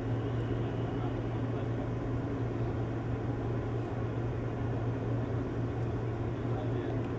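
A steady low hum under an even hiss, holding level throughout with no distinct knocks or calls.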